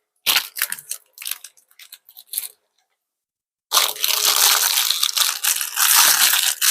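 Plastic packaging crinkling and tearing as a silicone mold is unwrapped: short crackles at first, a second of dead silence, then steady dense crinkling and rustling.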